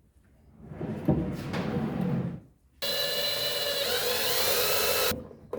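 Power drill running at steady speed with a whine for about two seconds, switching on and off abruptly, while drilling the hole to fix the drawer to its slide. It is preceded by a low rumbling rub of the work being handled.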